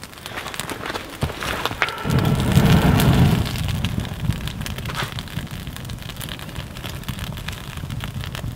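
Rain falling steadily, with a clap of thunder breaking in about two seconds in, loudest for a second or so and then rumbling on low beneath the rain.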